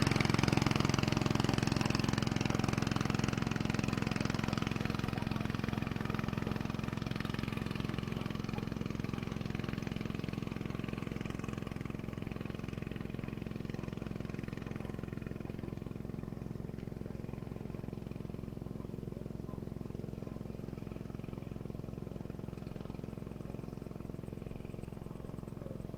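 A small engine chugging steadily, growing gradually fainter as it moves away.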